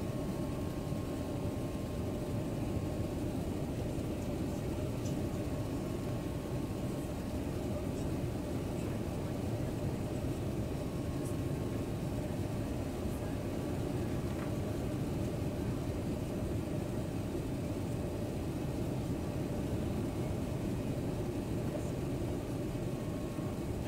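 Steady roar of an airliner's engines and rushing air heard inside the passenger cabin during the descent to land, with a faint steady hum.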